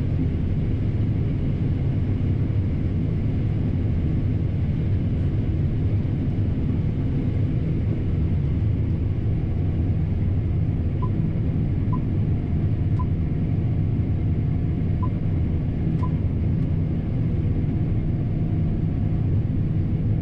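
John Deere T670i combine running steadily with its threshing gear engaged: a constant low machine hum. Five short beeps, about a second apart, sound past the middle.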